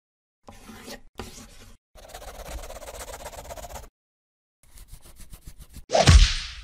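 Logo-animation sound effects: scratchy rubbing and scribbling noises, then a quick run of clicks. About six seconds in comes the loudest sound, a heavy stamp thud with a deep boom falling in pitch.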